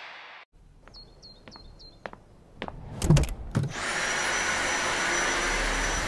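A few light clicks, then a cluster of louder knocks about three seconds in, after which a Dyson V8 cordless vacuum motor starts and runs steadily with a high whine.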